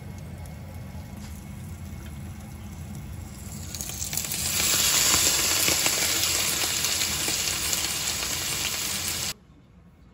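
Gyoza frying in a covered frying pan: a muffled sizzle that grows much louder and brighter about four seconds in, once the lid is off and steam rises, then cuts off suddenly near the end.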